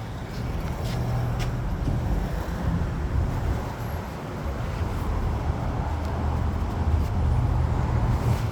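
Road traffic: a low, steady motor-vehicle engine rumble with road noise, swelling and easing a little.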